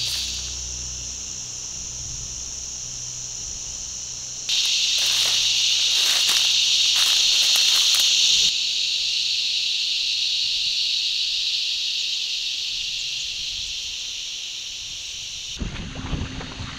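A steady high-pitched chorus of insects in summer bush, louder for a few seconds in the middle. Near the end it gives way to water sloshing around the legs and a canoe, with wind on the microphone.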